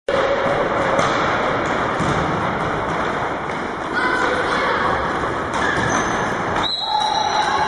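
Echoing sports-hall din of a children's indoor football game: a steady mix of children's shouts and voices, with ball kicks and thuds on the wooden floor.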